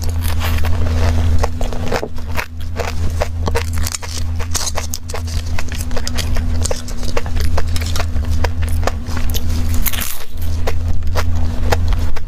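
Close-miked eating sounds: dense crackles and clicks of a flaky egg tart being bitten into and chewed, over a steady low hum.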